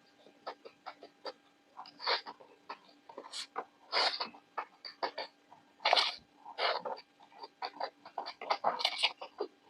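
Close-miked eating sounds from a mouth chewing veg noodles and crispy kurkure momos: a steady run of small wet mouth clicks, with several louder crunchy chewing bursts.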